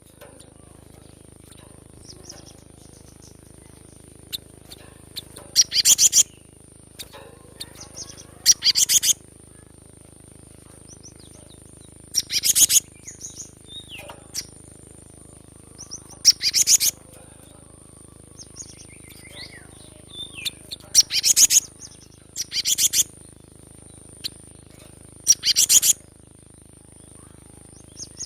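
Cinereous tit (gelatik batu) calling in short bursts of rapid, harsh repeated notes, seven bursts a few seconds apart. Fainter small chirps fall between them, over a steady thin high-pitched whine.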